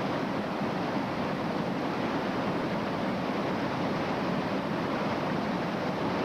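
Whitewater river rapids rushing, a steady, even roar of water.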